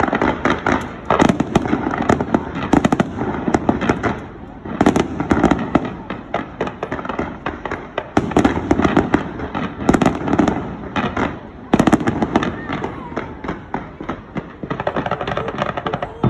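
Fireworks display: dense, rapid crackling and popping throughout, with louder bangs every second or two.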